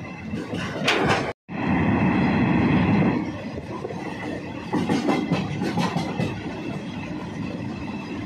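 Train running along the track, heard from on board the moving coach: a steady rumble of wheels on rail, with a quick run of rail-joint clacks about five seconds in. The sound cuts out for a split second early on.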